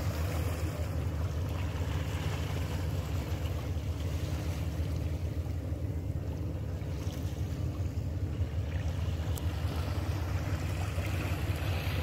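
Steady low rumble of wind on the microphone over calm sea water washing gently against a rocky shore.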